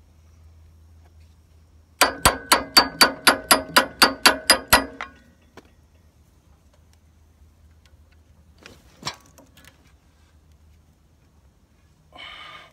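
Hammer rapping on a screwdriver at the sawmill's steel band wheel to work the old rubber wheel belt off: about a dozen quick, ringing metal strikes, roughly four a second, then a couple of faint clicks.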